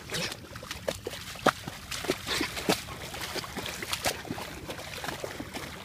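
A dog's legs and paws splashing in shallow water as it wades and paws at the surface: irregular splashes and sloshing with small plinking drips, one sharper splash about a second and a half in.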